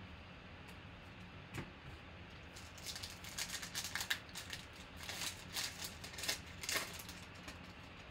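Foil wrapper of a 2020 Panini Prizm football card pack crinkling and tearing open in crackly bursts, starting about three seconds in and dying away near seven seconds. A single light knock comes just before it.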